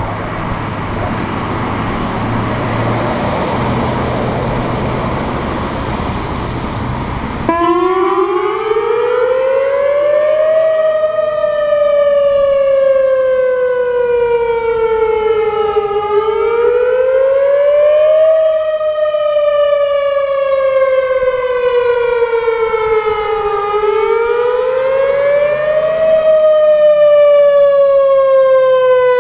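A loud, steady rushing noise cuts off abruptly about seven seconds in, as a Whelen WPS 3016 electronic outdoor warning siren starts its wail tone. The pitch climbs for a couple of seconds, then sinks more slowly, and repeats about every seven to eight seconds. This is the closing wail of the siren test.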